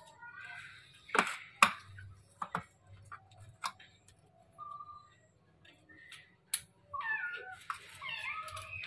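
Trapped kitten meowing behind a closed window. Sharp knocks and taps from hands working the window glass and frame come between the calls, loudest about a second and a half in, and the meows run close together near the end.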